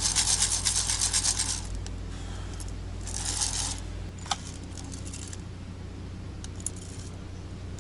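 Dry coffee beans rattling as a wire-mesh hand roaster is shaken: a fast rattle, then a shorter burst of shaking about three seconds in and a single sharp click soon after.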